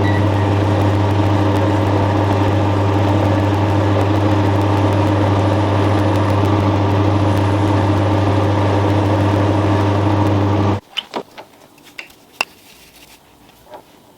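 Electric motor of a workshop machine running steadily with a strong hum, switched off about eleven seconds in, followed by a few light knocks and clicks.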